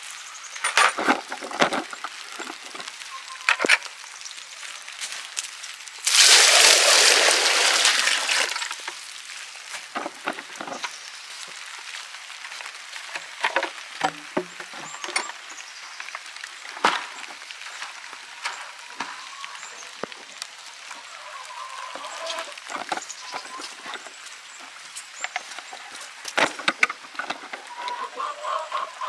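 Scattered wooden knocks and clinks of a bucket and chicken-coop fittings being handled. About six seconds in, a rush of water lasting a couple of seconds as the bucket is poured into the chickens' waterer. Chickens cluck faintly near the end.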